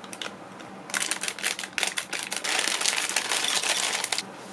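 Plastic packet of dry instant flat noodles crinkling in the hands, then the dry noodles pouring out of the bag and rattling into a bowl as a dense patter of clicks that cuts off suddenly near the end.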